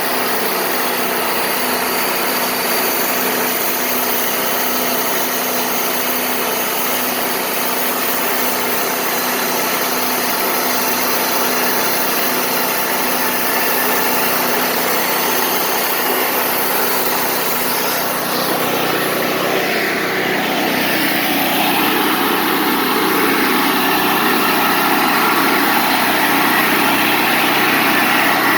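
Wood-Mizer LT40 Wide band sawmill running steadily under power. About two-thirds of the way in the sound turns rougher and slightly louder.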